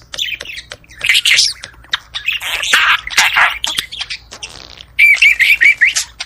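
Budgerigars chattering and warbling in short, busy bursts, with a quick run of about six clipped, repeated chirps near the end.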